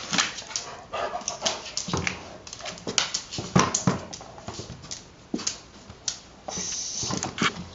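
Irish Setter pawing and scrabbling at a soccer ball stuck under a microwave cart: a run of irregular knocks, clicks and scrapes, with a longer scraping sound near the end.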